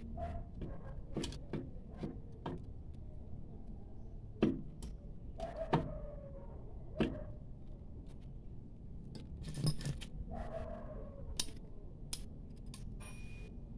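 Light metallic clicks and clinks of rear drum brake hardware being handled while the return spring is fitted on a Mitsubishi L300, irregular, with a handful of louder clicks spread through.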